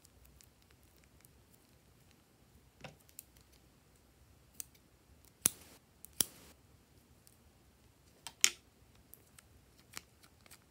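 Scissors snipping open the corner of a plastic zip bag of slime: a handful of short sharp snips and clicks on a quiet background, the loudest two about halfway through and another a little later.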